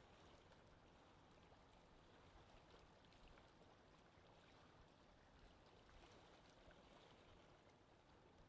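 Faint, steady wind ambience: an even rushing hiss with no separate events.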